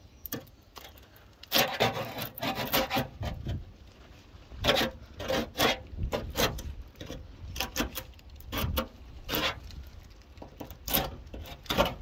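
Wood-handled chisel scraping blistered paint and rust off a car's rusty steel rear quarter panel, in short irregular strokes; there is rust underneath the paint.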